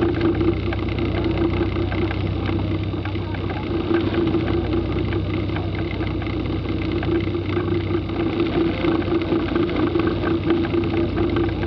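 Kit car's engine running steadily at low revs as the car creeps along at walking pace, a constant hum with no revving.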